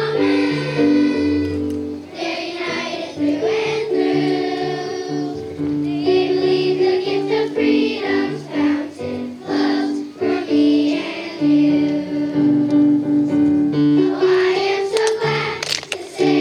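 Children's choir singing a patriotic song in unison over instrumental accompaniment.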